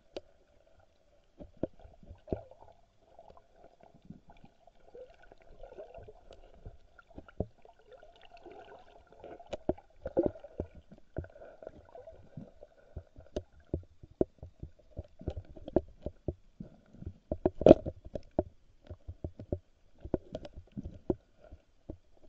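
Muffled underwater sound through a camera's waterproof housing as a cast net moves over the sandy bottom: irregular clicks and knocks, the loudest about ten seconds in and again near eighteen seconds, over a faint steady hum.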